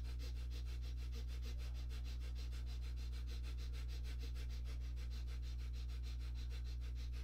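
A man doing rapid breathwork through the nose: short, forceful sniffing breaths in and out at a quick, even rhythm, over a steady low hum.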